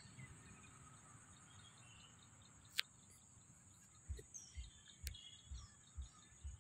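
Near silence: faint pond-side ambience with a steady high-pitched insect drone and faint bird chirps. Two sharp clicks, and soft low thumps about twice a second in the second half.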